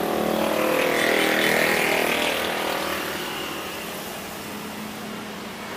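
A motor vehicle passing on the road close by: engine noise that grows louder over the first two seconds, then slowly fades away.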